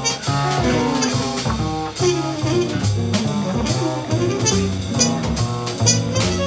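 Jazz ensemble playing: a muted trumpet over piano, guitar, upright bass and drum kit, with regular drum hits.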